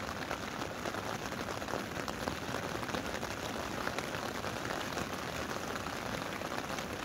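Rain falling on a tent, heard from inside: a steady, dense spatter of many small drop hits on the fabric.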